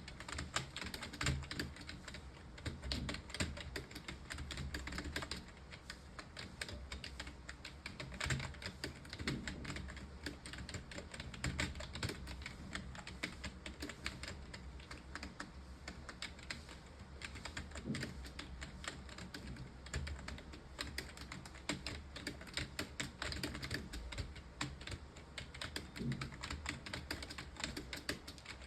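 Computer keyboard being typed on fast and without pause: a continuous run of keystroke clicks, several a second, with a few heavier key thumps among them.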